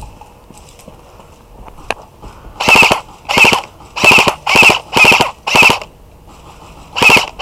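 Airsoft electric rifle, a G&G CM16, firing short full-auto bursts: six quick bursts, each a fraction of a second of rapid shots, starting about two and a half seconds in, then a brief pause and another burst near the end.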